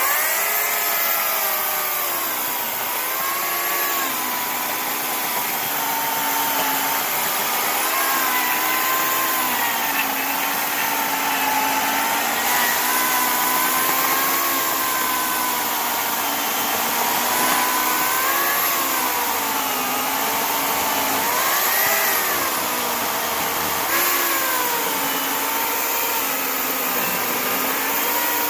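Oregon CS1500 15-amp corded electric chainsaw switched on and running continuously, its motor whine dipping and recovering in pitch again and again, as under the load of cutting into a log.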